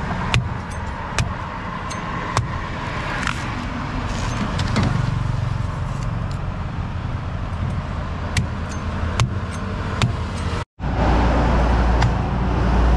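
Road traffic running past throughout, with scattered sharp knocks from a large knife chopping into the husk of palmyra palm fruit. After a short break near the end, a heavier vehicle passes, louder and lower.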